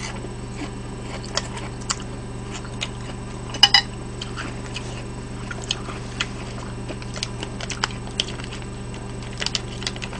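Quiet eating and handling sounds: small clicks of chewing, chopsticks and food being handled, with one sharper click about four seconds in, over a steady low hum. Near the end a cluster of small clicks and crinkles comes as a small packet of Parmesan cheese is opened.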